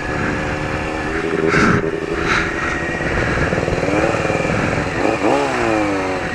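Motorcycle engine revving up and down while riding off-road, its pitch climbing and dropping twice near the end, with two short bursts of hiss about one and a half and two and a half seconds in.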